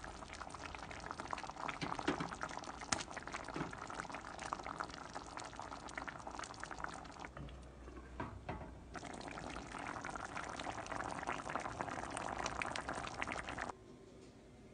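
Tomato-based fish stew bubbling in a pot on the stove: a dense crackle of small popping bubbles, in two stretches with a short lull between. It cuts off abruptly near the end.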